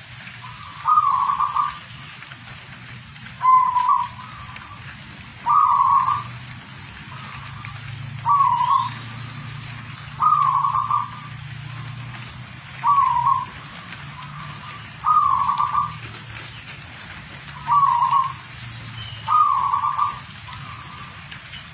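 Zebra dove (perkutut) cooing: nine short, loud, mellow phrases, repeated about every two seconds.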